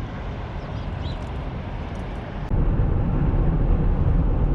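Road and engine noise inside a moving car: a steady low rumble that jumps suddenly louder about two and a half seconds in.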